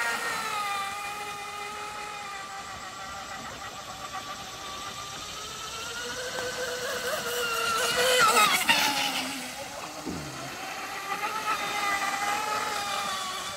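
Super Vee 27 RC speedboat's electric motor and propeller running at speed on a 6S battery: a high whine that wavers up and down in pitch. It swells to its loudest about eight seconds in with a burst of hiss, then eases off.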